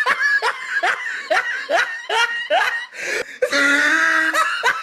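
A person laughing in a quick run of short 'ha' bursts about two a second. About three and a half seconds in, a longer, louder held sound cuts in for under a second.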